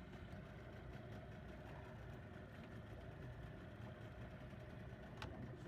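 Boat engine running at idle, a steady low rumble, with a single sharp click about five seconds in.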